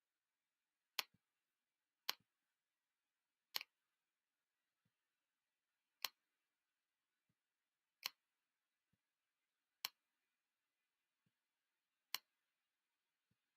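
Computer mouse button clicking: seven short, sharp clicks at uneven intervals, some with a softer release click just after, over a faint hiss.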